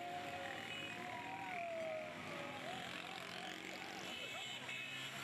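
Street crowd and motorcycles together: many voices shouting over motorcycle engines running past, with several overlapping calls rising and falling in pitch.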